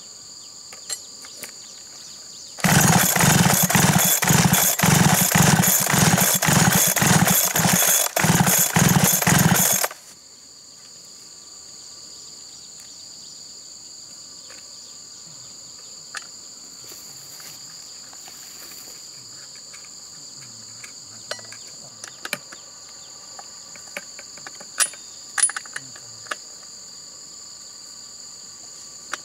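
A loud, noisy mechanical sound pulsing about twice a second for some seven seconds, starting a few seconds in and stopping suddenly. Insects drone steadily on two high tones throughout, and afterwards small metal clicks come from parts of a dismantled chainsaw being handled.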